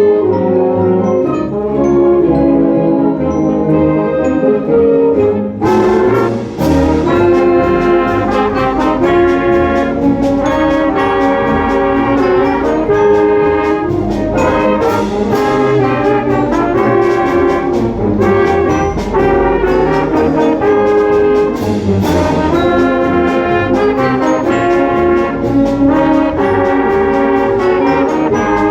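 A brass-led ensemble with trombones and trumpets plays sustained chords and melody, the sound growing fuller and brighter about six seconds in.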